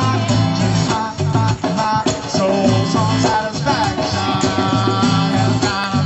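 Live band music with guitar and a steady beat.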